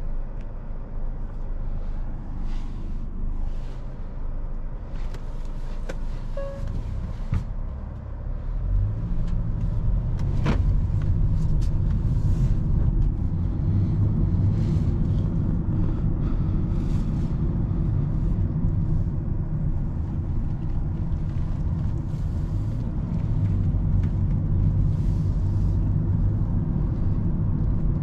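Cabin noise inside a 2020 Hyundai Sonata on the move: a steady low road-and-engine rumble that grows louder about nine seconds in, with a single sharp click a little after ten seconds.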